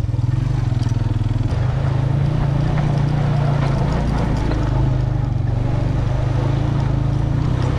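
Motorcycle engine running steadily while the bike rides along a rough dirt and gravel track.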